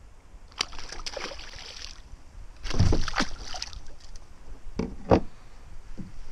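Water splashing in two spells as a hooked pike thrashes beside a small boat, the second spell the louder, followed by two sharp knocks near the end.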